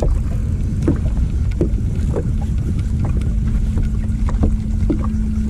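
Strong wind buffeting a boat-mounted microphone with a loud low rumble, while small waves slap the boat's hull in short knocks about once or twice a second; a steady low hum runs underneath.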